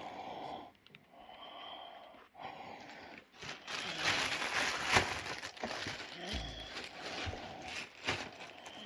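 Plastic packaging crinkling and rustling in irregular bursts as parts are unpacked from a box, with a sharp knock about five seconds in.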